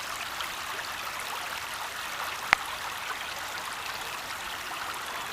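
Creek water running steadily, an even rushing hiss, with one sharp click about two and a half seconds in.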